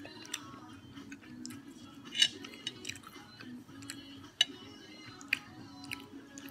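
Close chewing of cooked prawns, with sharp clicks now and then, the loudest a little after two seconds in, over quiet background music.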